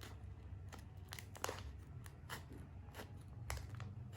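Small plastic-wrapped merch pack being opened: irregular crinkling, crackling and sharp clicks of packaging being cut and pulled apart.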